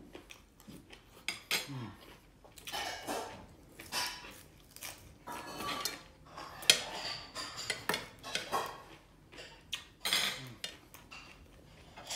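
Metal spoon and fork clinking and scraping against a plate and a stainless steel dish while eating, in a string of short, sharp clinks, the loudest a little over halfway through.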